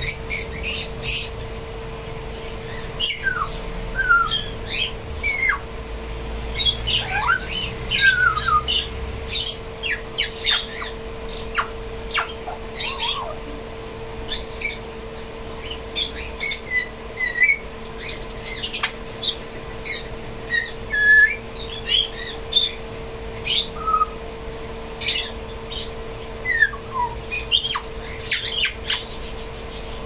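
African grey parrot giving a string of short chirps, squawks and sliding whistles, several every second, over a steady low hum.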